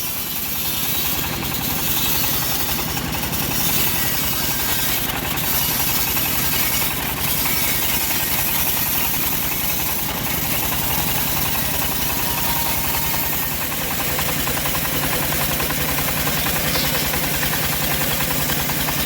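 Engine of a homemade bandsaw sawmill running steadily, driving the band blade.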